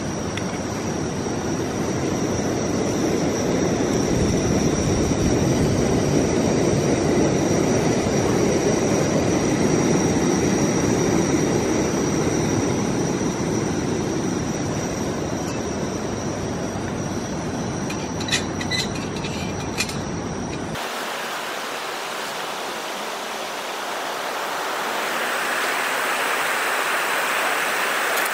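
MSR WhisperLite International liquid-fuel camping stove burning at full flame with a steady rushing roar, with a few light metallic clinks near the three-quarter mark. About three-quarters of the way through, the sound turns abruptly into a thinner, higher hiss as it is sped up fourfold.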